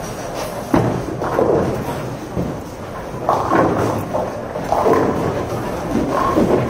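Busy bowling alley: balls and pins clattering across the lanes, with a sharp knock about a second in, over a background of voices.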